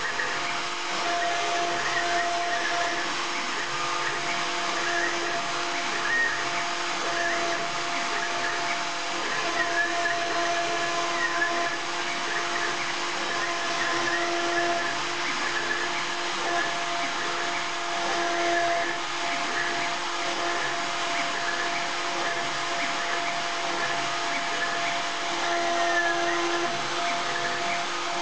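Small hobby CNC router at work, its handheld rotary-tool spindle running at high speed with a steady whirring hiss as the bit routes a groove in a plywood board. A few steady machine tones under it grow and fade as the machine moves.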